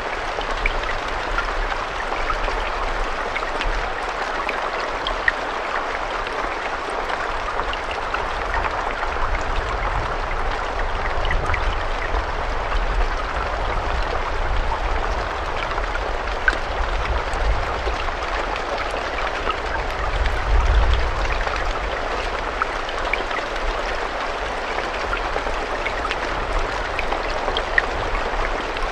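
Steady rain falling, an even hiss sprinkled with small distinct drop ticks, over a low rumble that swells briefly about twenty seconds in.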